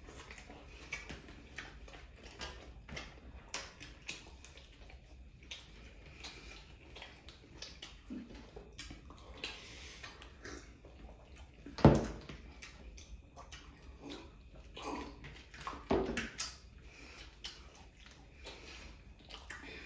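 Close-up eating sounds: chewing, wet mouth smacks and small clicks as chicken chaap and paratha are eaten by hand. A sharp knock stands out about halfway through, with a smaller one a few seconds later.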